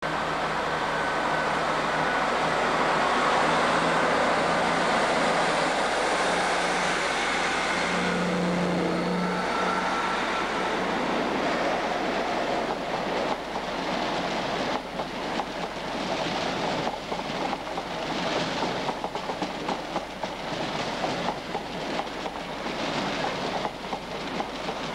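Trains at a station. First, loud diesel train noise with steady engine tones, from the Class 158 diesel unit pulling out. From about ten seconds in, a GNER InterCity 125 high-speed train runs past, its coaches clattering rhythmically over the rail joints.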